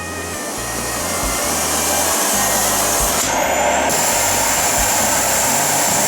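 Philips FC 9170 bagged vacuum cleaner running, a steady loud rush of motor and airflow that builds up over the first second. A little past the middle its sound changes briefly for about half a second, then it settles back.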